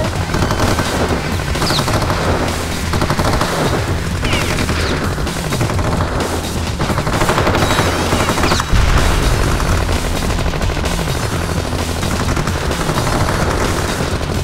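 Loud, dense, rapid crackling like sustained gunfire, with music underneath. A heavier low rumble swells briefly about nine seconds in.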